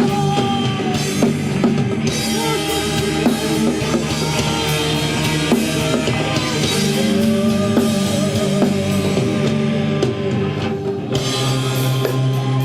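Rock band playing an instrumental passage: a drum kit with frequent cymbal and drum hits over held guitar and bass notes.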